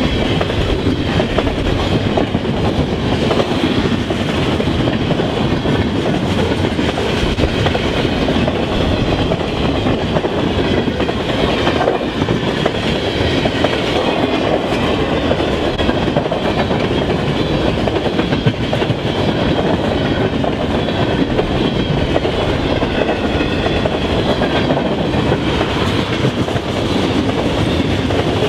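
Freight train cars rolling past at speed: a steady, loud rumble of steel wheels on the rails.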